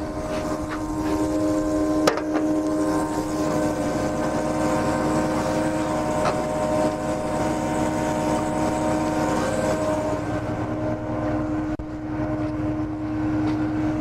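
Volumetric concrete mixer truck running, a steady engine and machinery drone with a strong hum; a single sharp knock about two seconds in.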